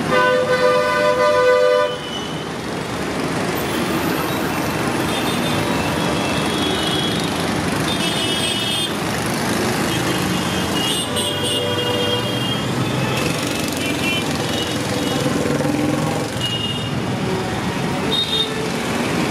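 Road traffic running steadily, with vehicle horns honking several times; the loudest is one long horn blast in the first two seconds.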